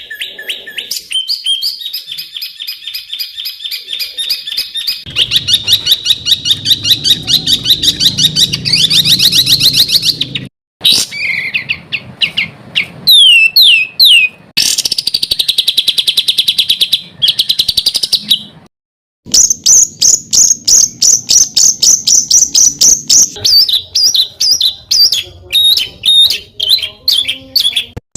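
A songbird singing fast, rapid-fire series of harsh, tightly repeated notes mixed with short whistled phrases. Brief pauses fall about ten and nineteen seconds in.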